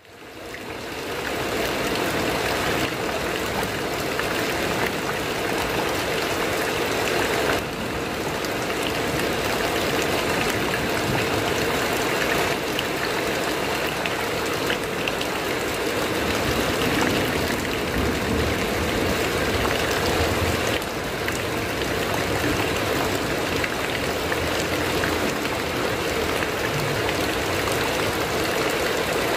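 Heavy rain drumming steadily on a corrugated metal roof, fading in over the first second or two.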